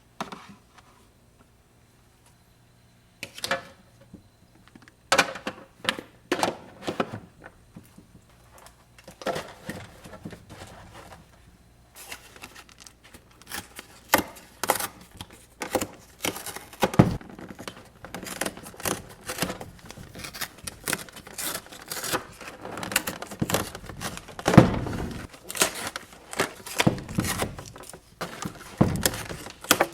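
Plastic bags crinkling and containers knocking as frozen-food packs are handled and sorted. After a quiet start comes a single knock, then a busy run of rustles, taps and knocks that grows denser about halfway through.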